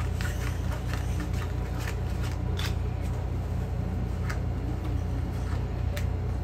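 Gold-backed playing cards being handled and laid out on a cloth-covered table: scattered, irregular light clicks and snaps of the cards, over a steady low hum.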